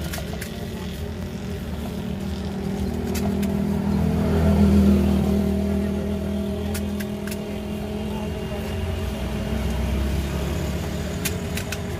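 A motor vehicle engine running steadily with a low hum, swelling to its loudest about four to five seconds in, with a few light clicks and taps.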